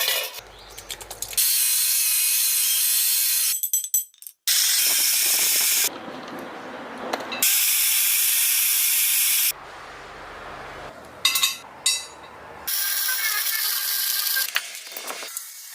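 Mechanical work sounds: several separate stretches of loud, steady hissing noise, each a second or two long and starting and stopping abruptly, with clicking and rattling between them.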